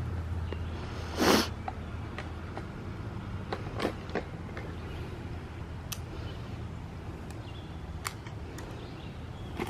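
Rod-and-reel fishing: a short swish about a second in as the line is cast, then scattered light clicks of the reel as it is worked, over a steady low rumble of wind on the microphone.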